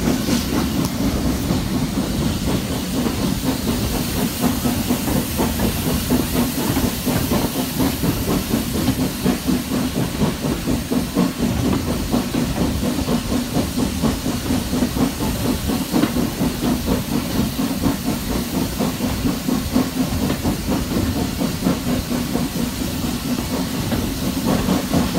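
Steam locomotive 401 hauling its train at steady speed, with a continuous hiss of steam over the running rumble of the train on the track.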